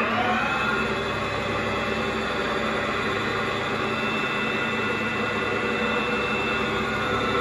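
CVA 1A toolroom lathe running steadily at speed, a mechanical hum with several steady whining tones over it.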